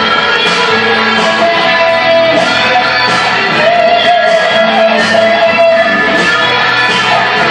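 Live rock band playing loudly, led by guitar, with a held, wavering melody note through the middle.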